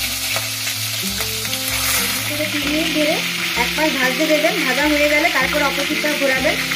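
Chicken drumsticks sizzling as they shallow-fry in hot refined oil in a kadai, a steady frying hiss, with a slotted metal spatula stirring and turning the pieces. Background music plays underneath.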